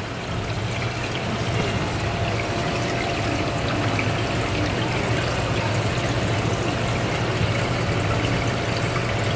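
Water pouring and trickling steadily into a live seafood display tank from its circulation outlet pipe, over a steady low hum.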